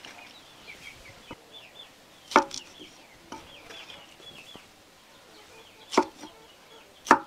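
Knife chopping raw green banana on a wooden chopping board: three sharp chops, about two and a half, six and seven seconds in, with lighter knife knocks between.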